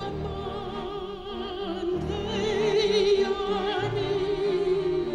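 Opera music: a singer holding long notes with a wide vibrato over an orchestra, the voice swelling louder near the middle.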